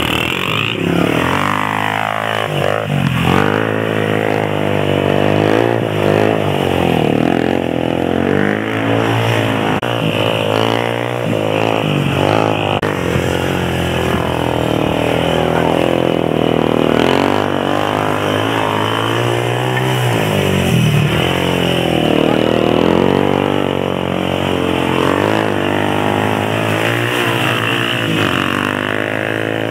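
Small single-cylinder off-road engine revving up and down repeatedly as it accelerates and eases off, its pitch rising and falling every few seconds.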